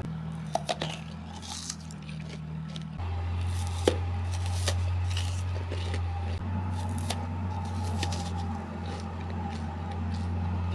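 Wet mouth and lip sounds: scattered short clicks and smacks from closed, moving lips, over a steady low hum that shifts about three seconds in and again past six seconds.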